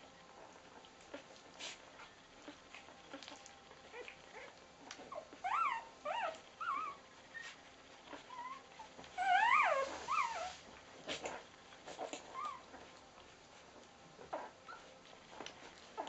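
Three-day-old rough collie puppies squeaking and whimpering while they suckle, with soft sucking clicks between the cries. The squeaks come in two bunches, about five seconds in and again about nine to ten seconds in, the second the loudest.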